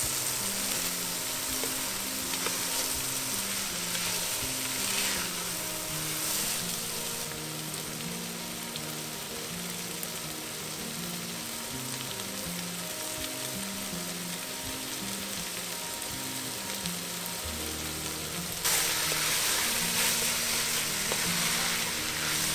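Diced potatoes, corn, carrots, celery and onion sizzling in fat in an enameled Dutch oven as they are stirred with a spatula; the sizzle gets louder about three-quarters of the way through.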